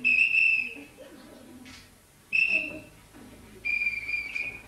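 Three steady, high whistle notes, each under a second long, with short gaps between; the third is slightly lower and the longest.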